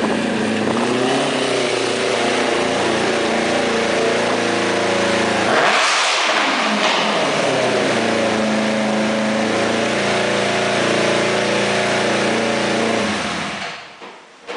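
Buggy powered by a Suzuki GSX-R750 four-cylinder motorcycle engine, running and revving, with a brief loud rush about six seconds in as it passes close by. It then runs steadily at a constant speed until it cuts out near the end.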